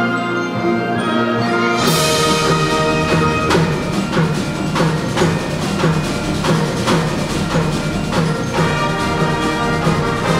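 Concert band playing a fanfare: a held chord, then about two seconds in a loud full-band entrance, followed by accented percussion strokes roughly twice a second with tubular chimes struck among them.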